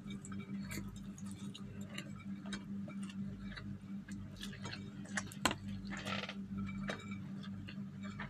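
Close-up eating sounds of a person finishing rice by hand: irregular small clicks and smacks from the mouth and from fingers picking grains off a ceramic plate. A steady low hum runs underneath.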